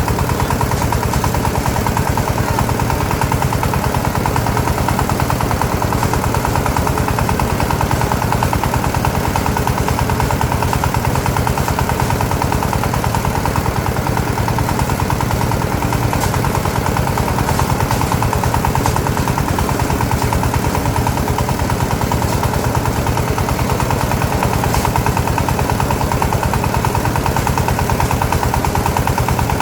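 A small engine running steadily at an even, fast chug, with no change in speed.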